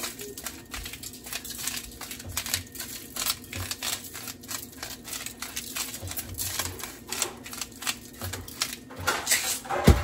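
Fresh green beans tossed by hand on a foil-lined baking pan: a run of quick, irregular foil crinkles and clicks, with one louder knock near the end.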